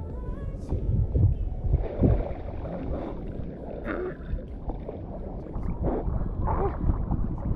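Rock-pool water sloshing and lapping over a camera held half-submerged at the surface, in irregular low surges, as a person wades and moves through the pool.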